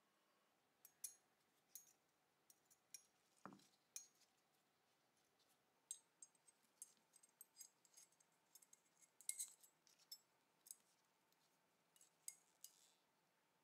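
Faint, irregular metal clicks and clinks of small pistol parts being handled as a pin and the trigger are fitted into a Colt Model 1903 Pocket Hammer frame, with one duller knock about three and a half seconds in.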